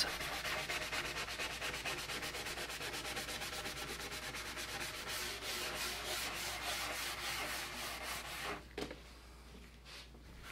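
A scuff pad wet with lacquer thinner is scrubbed in quick back-and-forth strokes over a stripped wooden chest lid, taking off the last of the old finish and stripper residue. The scrubbing stops about eight and a half seconds in, followed by a couple of light knocks.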